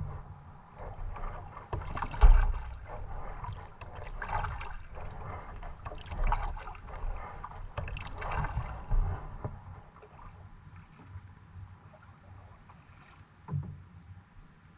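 Water splashing and sloshing in surges about every two seconds, fading off in the second half.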